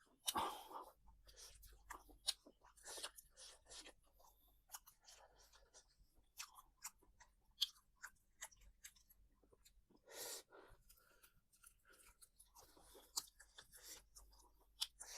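Quiet close-up eating sounds: irregular chewing and crunching with small clicks and smacks.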